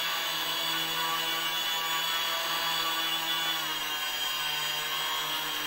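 Twin RC model propeller motors running steadily under thrust-differential rudder control, a whine of several steady tones. The pitch shifts slightly about three and a half seconds in as the rudder input changes the balance of thrust between the motors.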